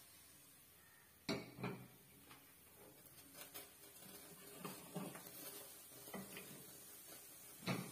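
A metal wok set down on a gas stove's grate with a clank about a second in, then light clatters of kitchenware and another sharp knock near the end.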